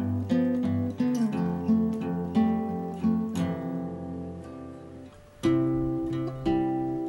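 Acoustic guitar music: picked notes and strummed chords that die away about five seconds in, followed by a new strummed chord.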